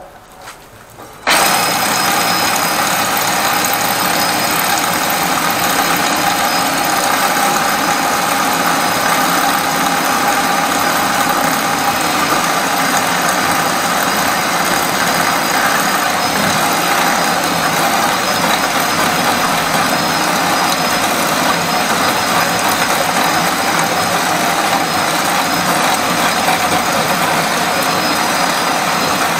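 Flexible-shaft drain-cleaning machine starting about a second in and then running steadily, its spinning cable turning inside the drain pipe to clear a clogged urinal line.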